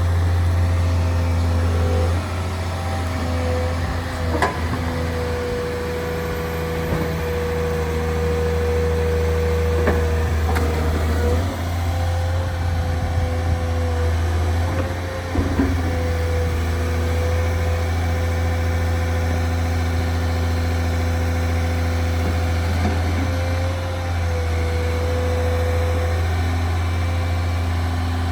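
Diesel engine of a Volvo EW210D wheeled excavator running steadily, with a steady higher whine that stops and starts a few times and a few brief knocks.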